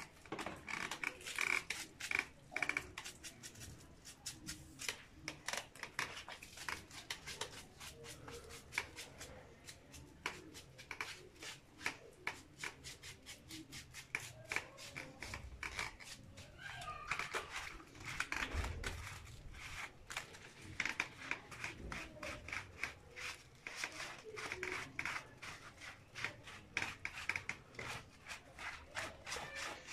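Hands scrubbing a lathered dog's wet fur: quick, repeated rubbing strokes that go on without a break.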